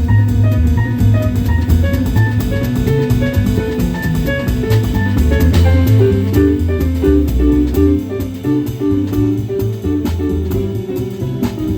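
Live jazz combo playing: a drum kit with cymbal strikes keeping time under a busy run of plucked, pitched notes and a strong bass line.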